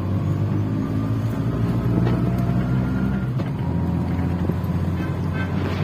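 Auto-rickshaw engine running steadily as it drives along, heard from inside the vehicle.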